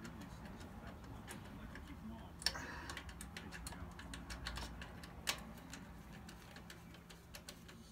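Faint small metallic clicks and taps of hands and tools handling turbo wastegate parts and screws, with two sharper knocks about two and a half and five seconds in.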